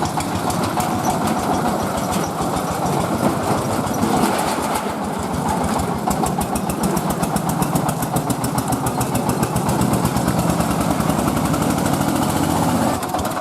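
Engine of a mobile rice milling machine running steadily with a fast, even beat.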